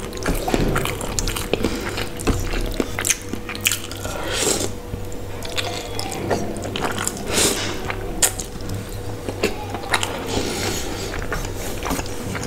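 Close-miked eating of spicy instant noodles: slurping and chewing with wet mouth sounds, a few longer slurps among many short clicks of a wooden fork in a steel plate.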